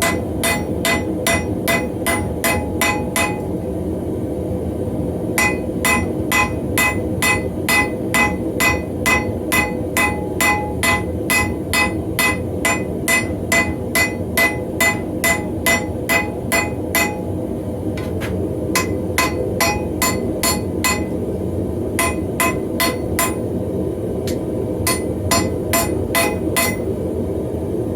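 Blacksmith's hammer striking hot steel on an anvil in steady runs of about three blows a second, each blow ringing, with short pauses between the runs. A steady low running noise sits underneath.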